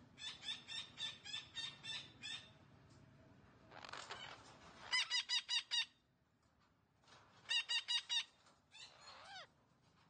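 Parakeet calling in quick runs of harsh, repeated notes: a fast string of about nine, a short rasp, then two bursts of five loud notes, and a falling call near the end.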